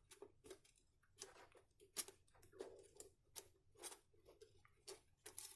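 Faint, irregular small clicks and taps, about a dozen, from handling the power strip's metal bus bar while dabbing solder paste onto it.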